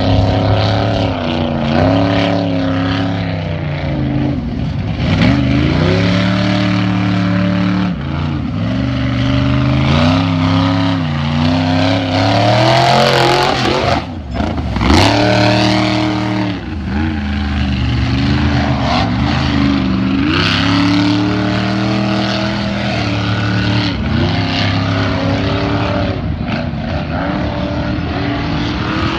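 4x4 truck engines revving hard as they drive through a flooded mud pit, the pitch climbing and dropping again and again, with the hiss of muddy water spraying.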